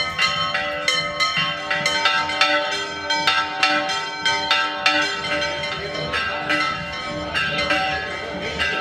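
Church bells pealing: rapid, overlapping strikes several times a second, each left ringing.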